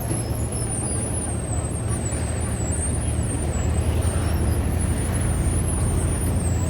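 Steady low rumble of fishing-boat diesel engines running, with a thin high whine wavering in pitch above it.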